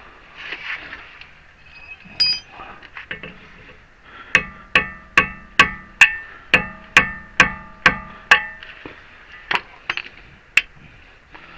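Hammer blows driving a screwdriver against the staked lip of a car's axle nut: a steady run of about ten ringing metal strikes, roughly two and a half a second, then a few more spaced strikes near the end.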